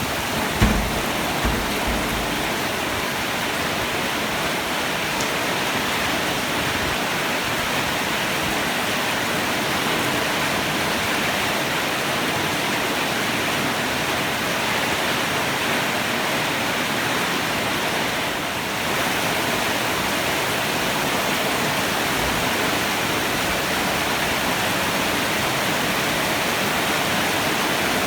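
Heavy rain pouring steadily, an even hiss with no thunder. A few low thumps come in the first two seconds.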